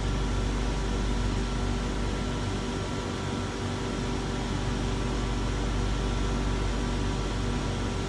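Steady hum and hiss of a stationary SMRT C751B train's air-conditioning and auxiliary equipment, heard inside the carriage with the doors open, with a low rumble and several faint steady tones.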